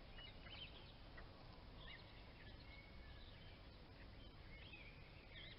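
Faint outdoor ambience: scattered short bird calls and chirps over a low, steady rumble.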